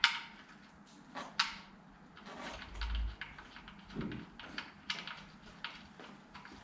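Irregular sharp clicks and taps of hand tools and small parts being handled under a car, the loudest at the start and about a second and a half in, with a short low thump about 3 seconds in.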